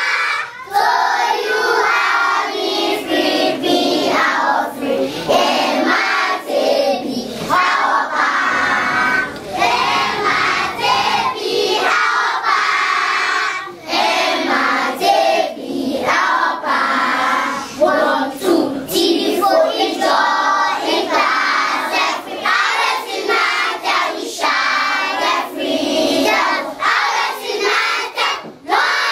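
A group of children singing together, loud and continuous.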